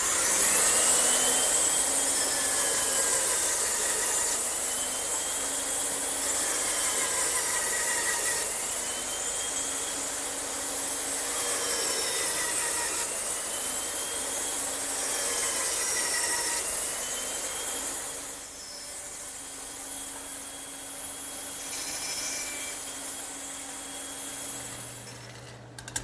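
Bandsaw running and cutting through wooden slats to finish their tenons. The blade's whine dips and rises in pitch every few seconds as each cut is fed through, and the cutting grows quieter for the last several seconds.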